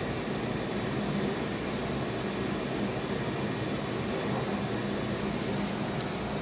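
Tokaido Shinkansen train running, heard from inside the passenger car: a steady, even running noise with a low hum.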